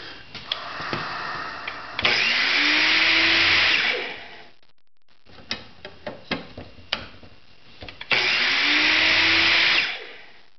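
Repurposed miter saw motor driving a diamond wheel, switched on twice for about two seconds each: it spins up with a rising hum and a harsh grinding hiss as the wheel sharpens a carbide saw-blade tooth, then winds down. In between comes a run of clicks and knocks as the saw blade is turned by hand to the next tooth against a screw stop.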